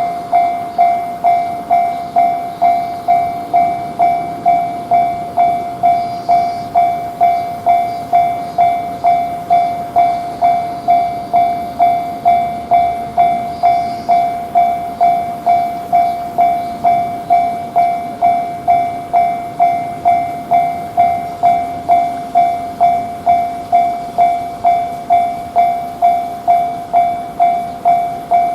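Japanese level-crossing warning bell ringing in its steady 'kan-kan' rhythm, about two rings a second, signalling that a train is approaching.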